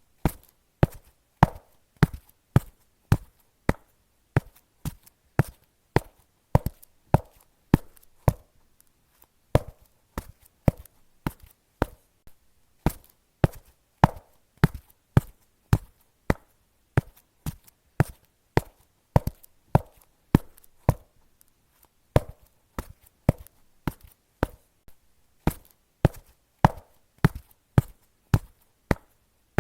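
Footsteps on concrete at a steady walking pace, about two crisp steps a second.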